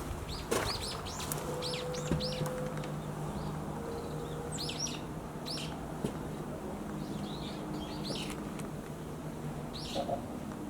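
Small birds chirping in short, high calls scattered throughout, over a steady low hum.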